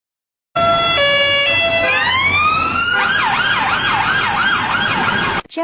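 UK police car siren, starting about half a second in: a brief stepped two-tone, then a rising wail, then a fast yelp sweeping up and down about four times a second, cutting off suddenly near the end.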